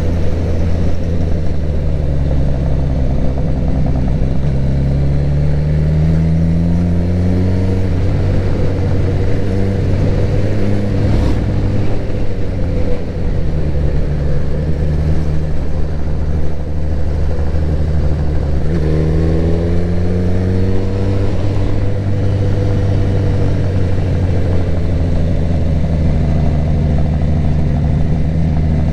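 Suzuki GSX-R1000 K7's inline-four engine being ridden, its revs climbing in two long pulls under acceleration, one a few seconds in and one about two-thirds of the way through, and easing off between them.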